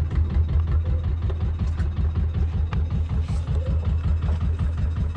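Engine on a squid-fishing boat running steadily, a low, even, fast pulse.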